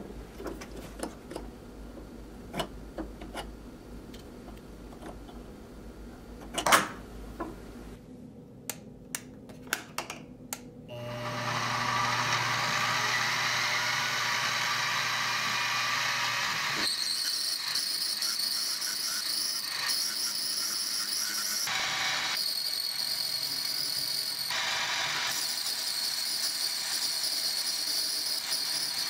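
Light clicks and taps of metal parts and tools being handled, with one louder knock about seven seconds in. About eleven seconds in, a machine spindle starts and runs steadily. From about seventeen seconds an end mill cuts a slot into a metal block held in a vise, a steady high-pitched cutting noise.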